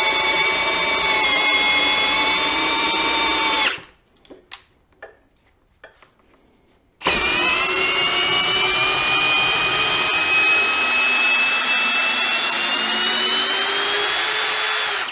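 Ridgid cordless hammer drill's motor whining steadily while driving a long timber screw into a wooden post. It runs for about four seconds, stops for about three seconds with a few small clicks, then runs again for about eight seconds, its pitch rising slightly toward the end.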